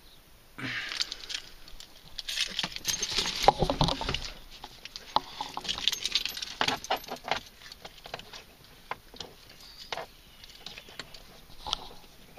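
A bunch of car keys with a remote fob jangling as it is shaken and handled, a busy rattle of small metal clicks for most of the first two-thirds, then only a few scattered clicks.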